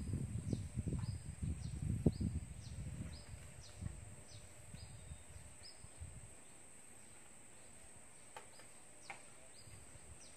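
Quiet rural outdoor ambience: a steady high-pitched whine with short falling chirps repeating about twice a second, fading out about halfway through. A low rumbling noise runs under the first few seconds, then dies away.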